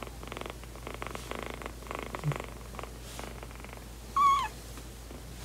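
A kitten purring in a run of pulsed phrases with short breaks between them. About four seconds in there is one short, high squeak that drops in pitch at its end.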